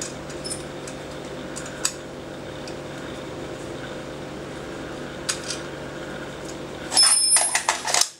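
Light handling clicks on a JG M4 CQBR airsoft rifle over a steady background hum. About seven seconds in comes a quick run of loud, slightly ringing clacks as a magazine is pushed into the rifle's magazine well.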